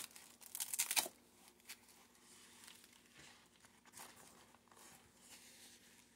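Hook-and-loop straps on a Myomo powered arm brace being pulled and pressed into place: rasping, tearing sounds in the first second, then faint rustling and a couple of small taps as the bicep piece is handled.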